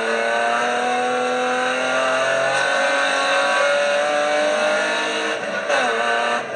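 BMW 325 E36 rally car's straight-six engine heard from inside the cabin, pulling hard with its pitch climbing steadily for about five seconds, then dropping briefly as it shifts up and climbing again near the end.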